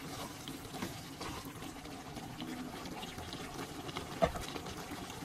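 Pork curry simmering in its gravy in a pot, a steady sizzle with many small crackles and pops, and one sharper click about four seconds in.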